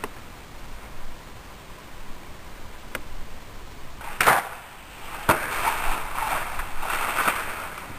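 Compound bow shot at a deer: a loud thump of the release about four seconds in, a sharp crack of the arrow striking about a second later, then a couple of seconds of rustling as the hit deer bolts off through dry grass.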